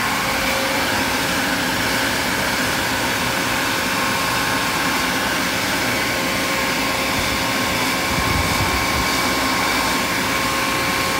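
New electric motor on a bulk tank washer pump running steadily, a constant motor hum and whine.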